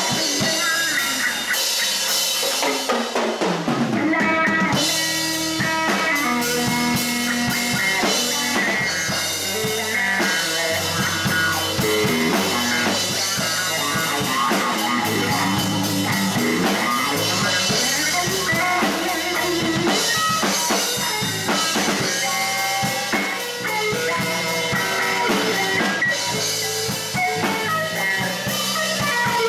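Live blues band playing: electric guitar over electric bass and a drum kit, with a note sliding down in pitch about three seconds in.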